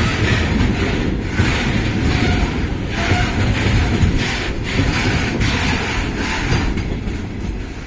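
Long rake of railway tank wagons rolling slowly past, a steady rumble of wheels on rail.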